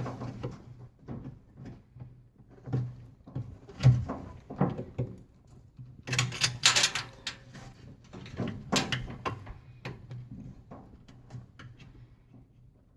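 Scattered clicks, knocks and small metal rattles of a replacement washing machine drain pump and its clamps being handled and fitted, heaviest in the middle and growing fainter near the end.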